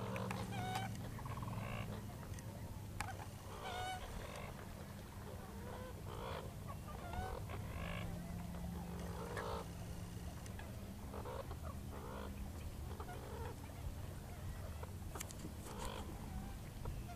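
Wild animals in the reed marsh calling: short croaking and honking calls, repeated roughly once a second, over a steady low hum.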